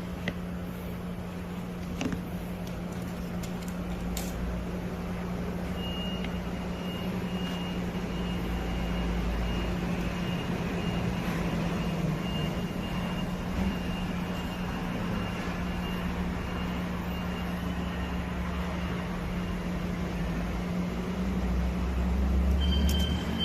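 Rice cake cutting machine running: a steady motor hum with a mechanical clatter, a few sharp clicks in the first seconds and a thin high whine coming in about six seconds in.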